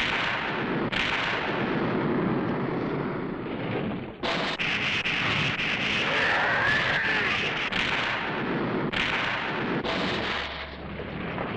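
Film battle sound effects: a long run of explosion blasts, each new one starting sharply on the tail of the last, about ten in all.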